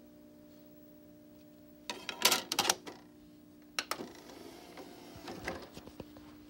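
A plastic disc handled and set into a DVD player's open tray: a burst of clicks and rattles about two seconds in, one sharp click near the middle, then softer scraping and small clicks. A steady low hum runs underneath.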